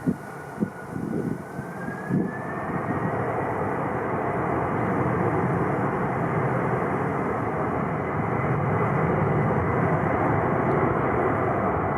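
Jet airliner engines spooling up, a whine rising in pitch over the first few seconds, then a steady loud roar at high power. Wind buffets the microphone with low gusty thumps in the first couple of seconds.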